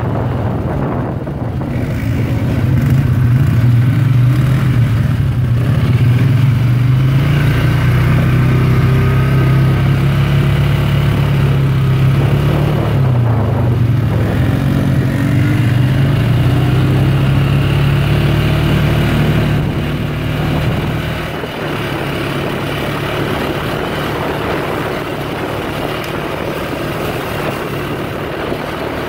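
ATV engine running steadily while riding along a gravel trail, with tyre and wind noise. The engine note dips briefly and recovers about 13 seconds in, then drops to a lower, quieter run a little after 20 seconds.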